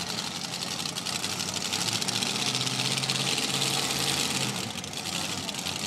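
Supercharged engine of a modified two-wheel-drive pulling truck idling with a steady low note, swelling slightly about two seconds in.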